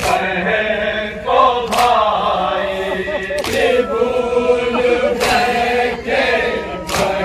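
Noha, a Shia mourning lament: male voices chanting a slow melody in chorus, with a sharp beat about every second and three quarters.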